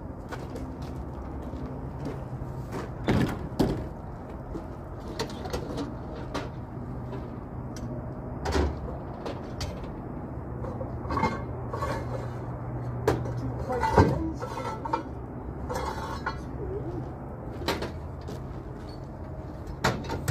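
Scattered knocks, clanks and rattles from tie-down straps and gear being handled, a few seconds apart, over a steady low hum.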